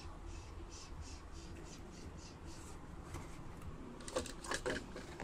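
A cardboard-and-plastic mouse retail box handled by hand: faint repeated rubbing and scraping strokes, then a few light knocks and clicks about four seconds in.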